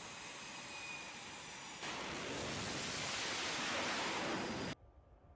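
Fighter jet engines on an aircraft carrier flight deck: a steady rush that gets louder about two seconds in and then cuts off suddenly near the end.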